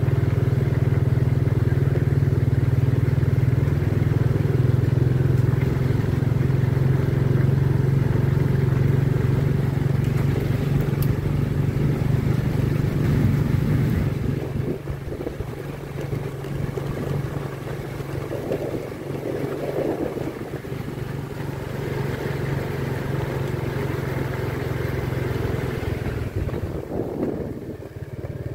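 A vehicle's engine runs steadily as it drives along a dirt track. It turns quieter about halfway through and picks up again near the end.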